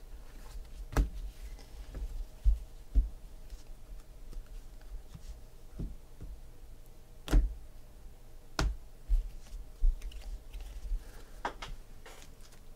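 Baseball trading cards being handled and sorted on a table, with several sharp taps at uneven intervals as cards and stacks are set down; the two loudest come a little past halfway.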